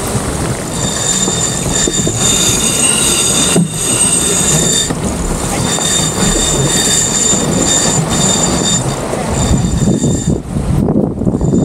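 Wind buffeting the microphone and water rushing along a racing sailboat's hull, with a thin, high squeal that comes and goes from about a second in until near the end.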